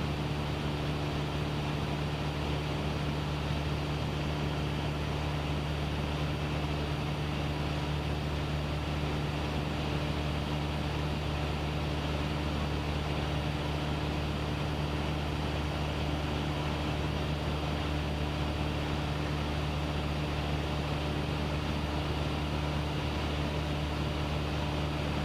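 Light aircraft's piston engine and propeller droning steadily at cruise power, heard inside the cabin, with a constant low hum that holds one pitch.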